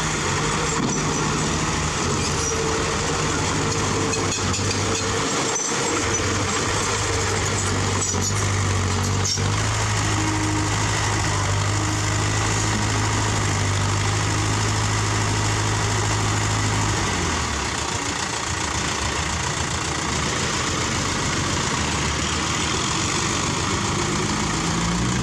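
Heavy diesel engine of earthmoving machinery running steadily; its note shifts lower about two-thirds of the way through.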